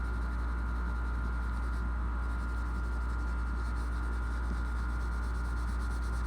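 A steady low hum with a faint steady tone and hiss above it, unchanging throughout.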